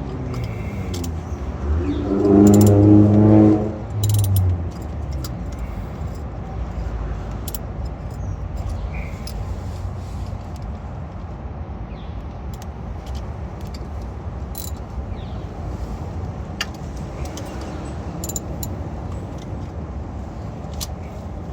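Scattered light metallic clicks and clinks of an oil filter wrench working a spin-on oil filter tight, over a steady low rumble. About two seconds in, a man's voice strains for a moment with the effort.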